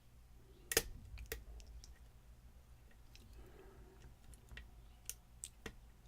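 Small sharp metallic clicks of lock picks working inside a lock's keyway, a loud click about a second in and a few more near the end.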